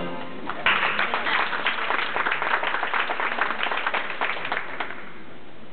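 A small group of spectators applauding: a dense patter of hand claps starts about half a second in and dies away near the end.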